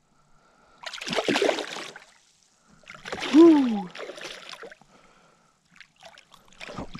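A hooked bass thrashing and splashing at the water's surface beside a kayak, in two bursts of splashing about a second and three seconds in, the second the loudest. A short falling tone sounds over the second splash.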